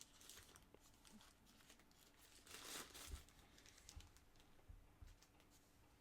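Faint rustling and crinkling of packaging being handled, louder about two and a half seconds in, with a few soft knocks.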